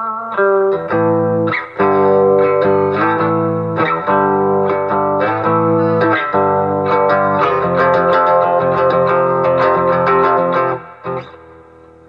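Gibson Melody Maker electric guitar played through an Acoustic Control Corp 260 solid-state amp head set to the manual's Telecaster tone. It plays a few picked notes, then strummed chords, then longer ringing chords that die away near the end.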